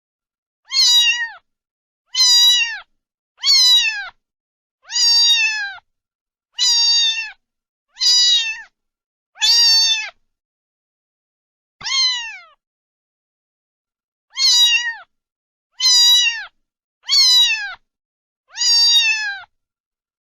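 A domestic cat meowing over and over: about a dozen short meows, each falling in pitch, with a couple of longer pauses in the middle.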